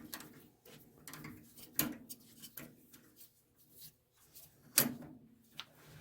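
Scattered clicks and knocks of workshop hand tools being handled at a lathe, with two louder sharp knocks about two and five seconds in.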